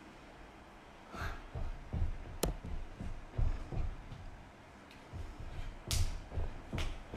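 Handling noise from a recording device being fiddled with up close: irregular low bumps and rubbing, with a few sharp taps or clicks.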